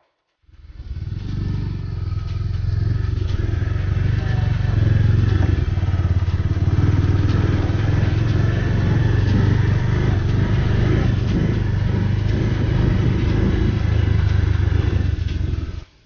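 Motorcycle engine running steadily under way on a rough road, with light rattles over the engine drone. It swells in just after the start and cuts off abruptly near the end.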